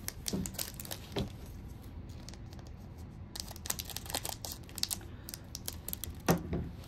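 Foil Pokémon booster pack wrapper crinkling and crackling as it is handled, with light ticks of cards being set down. The crackling grows denser past the middle, with a louder crackle near the end.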